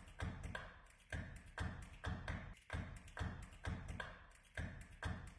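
A percussive rhythm of soft, evenly spaced hits, about two a second, each with a low thump beneath it.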